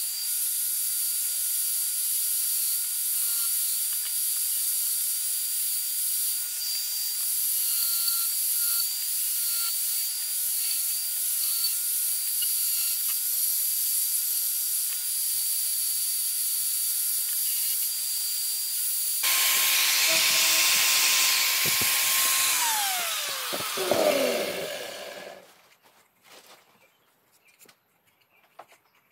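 Angle grinder fitted with a sanding disc, running with a steady high whine and a hiss as it sands wood. About two-thirds through it grows louder, then it is switched off and winds down with a falling whine and stops, leaving near quiet with a few faint clicks.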